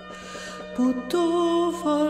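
Slow Moravian folk-song music between sung lines: a steady low drone under a long-held melody note. The melody falls quiet at the start, touches a brief lower note, and returns strongly about a second in.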